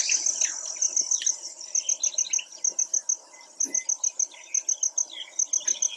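Insects chirping in a high, rapid pulse, the chirps coming in short trains of three or four with brief gaps. A few faint bird calls sound behind them.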